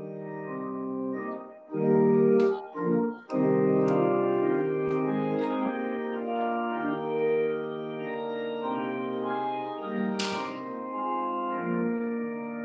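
Church organ playing the closing voluntary: sustained chords that change every second or so, with a couple of short breaks between chords about two to three seconds in. A brief hiss about ten seconds in.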